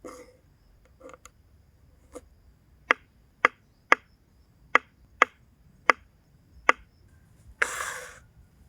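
A run of sharp, short knocks or taps, seven loud ones about two a second after a few fainter ones, followed near the end by a brief rush of hissing noise.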